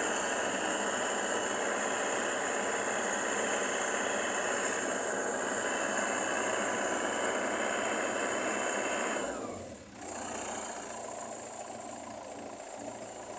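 Combine harvester engine running with a high, steady whine over it. About nine seconds in the sound drops away briefly, then picks up again more quietly.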